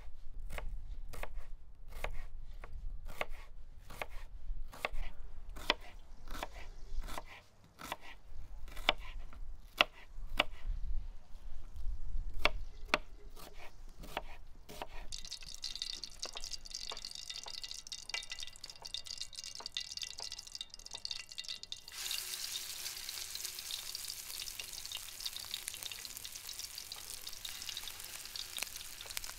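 Kitchen knife chopping onion and cilantro on a wooden cutting board, about two sharp strokes a second, through roughly the first half. Then hot oil sizzles in a frying pan, getting louder and fuller about two-thirds of the way through as spoonfuls of minced liver mixture go into the oil.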